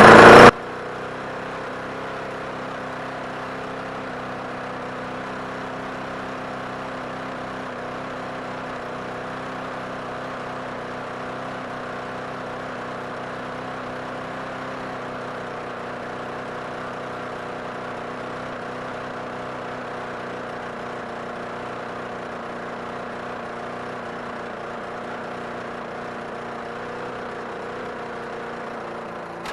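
Briggs & Stratton 6.5 hp single-cylinder push-mower engine starting on the pull with a loud burst in the first half second, then running at a steady, even speed: it now starts and runs without starting fluid after its plastic carburetor was cleaned.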